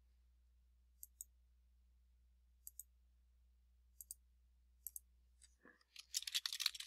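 Faint computer mouse clicks, each a quick double tick, every second or so, then a quick run of keyboard typing near the end.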